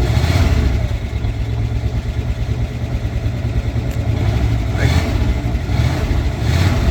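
1958 Oldsmobile 88's V8 running steadily at idle, with a few brief swells in level. It is a freshly revived barn-find engine running on a temporary fuel tank while its old fuel burns out.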